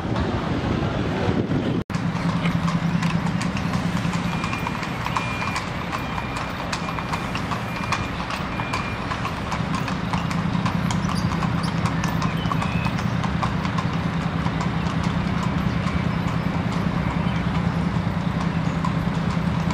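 Hooves of a pair of carriage horses clip-clopping at a steady walk on an asphalt road as they pull a horse-drawn carriage, over a steady low hum of city traffic.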